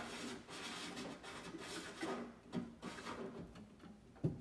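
Handling noise of a power cord and plug being fed and pulled through a small drilled hole in a housing: irregular rubbing and scraping, with a sharp knock near the end.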